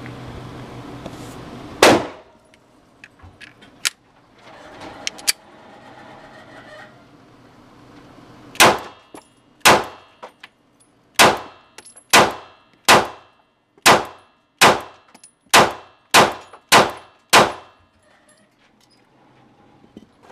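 Springfield Hellcat 9mm pistol firing Hornady Critical Duty 135-grain rounds. There is one shot about two seconds in, then after a pause a string of eleven shots about a second apart, coming faster toward the end, each with a short ringing tail.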